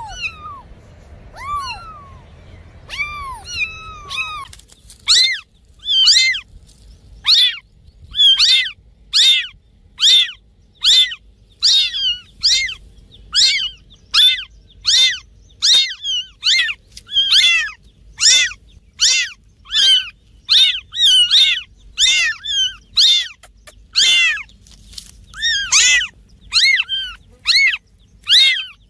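Cats meowing over and over. First come a few lower, arching meows about once a second. Then, about four seconds in, a run of shorter, higher-pitched, louder mews takes over, about one and a half a second, and keeps on almost without a break.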